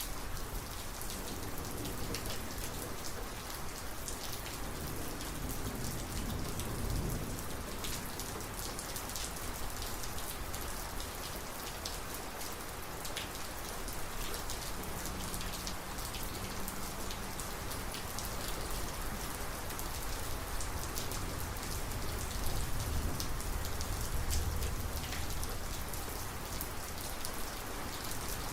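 Thunderstorm rain falling steadily, with many sharp individual drop impacts close to the microphone. Low rumbles of distant thunder swell faintly about 7 seconds in and again about 22 to 25 seconds in.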